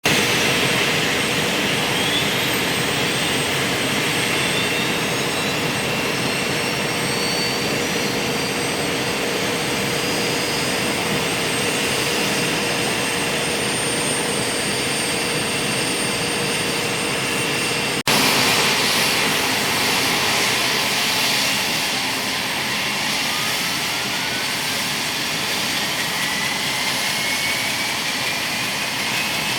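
Military helicopter turboshaft engines (General Electric T700 type) running during startup: a steady high turbine whine over a loud roar, with rising whines as the turbines spool up. The sound cuts abruptly about 18 seconds in to another steady run, where a whine rises slowly in pitch.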